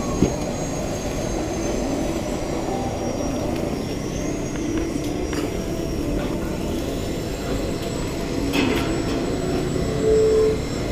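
Steady low rumbling background noise, with a short click just after the start and a brief pitched tone about ten seconds in.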